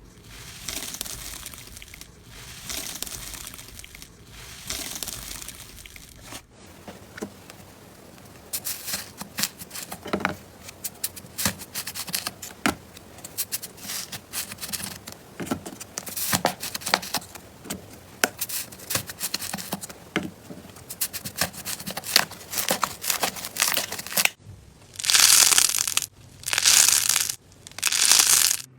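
Slime being handled close up: soft squishing swells at first, then a long run of sharp crackling pops, then three loud, longer squelching presses near the end.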